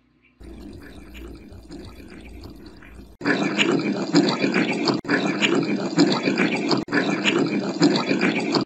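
Playback of running tap water recorded as noise and filtered through AI noise-cancellation software: a steady water hiss that becomes much louder about three seconds in and cuts out briefly twice. In the hiss the listener hears a voice saying 'It is Bacci'.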